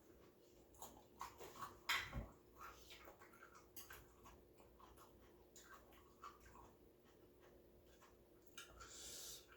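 Faint close-up eating sounds of someone chewing noodles: soft, irregular mouth clicks and smacks, with one louder click about two seconds in and a short hissing intake of air near the end.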